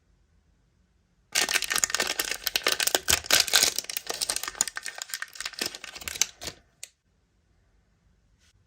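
Crinkling and crackling of toy packaging being handled and opened, a dense run of small clicks and rustles lasting about five and a half seconds before stopping abruptly. Two faint ticks near the end.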